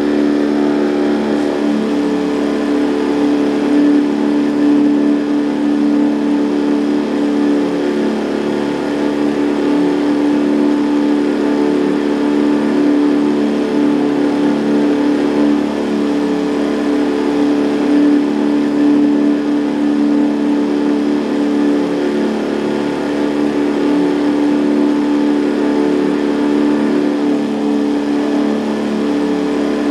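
Boat's outboard motor running at a steady, unchanging speed: a constant engine hum that holds one pitch throughout.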